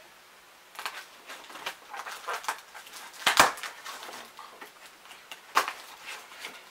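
A mailed package being opened by hand: irregular rustling and tearing of packaging, with the sharpest rip about three and a half seconds in.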